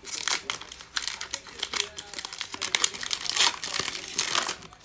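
Foil wrapper of an Optic football card pack crinkling and tearing as it is ripped open and the cards are pulled out of it, in a run of crackly bursts that is loudest a little past the middle.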